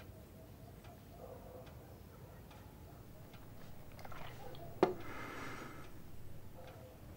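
A clock ticking faintly and steadily, about one tick a second. A single sharp knock lands about five seconds in, the loudest sound here, followed by a short breathy rustle.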